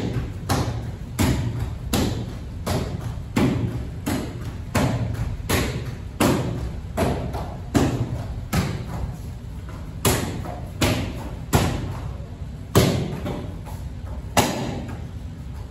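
Taekwondo kicks striking a handheld kick paddle (mitt) in a fast, steady rhythm, a sharp slap at about one and a half kicks a second, as in a timed speed-kicking drill.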